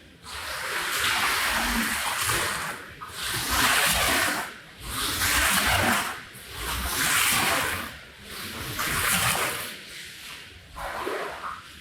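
Wet rug being worked with water in repeated swishing passes, about six strokes roughly a second and a half apart, with water splashing.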